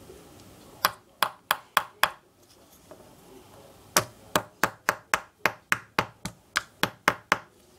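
A toy hammer tapping a toy chisel against a plaster dig-kit block: five quick taps about a second in, then a steady run of about four taps a second from about four seconds in. The chisel makes no headway.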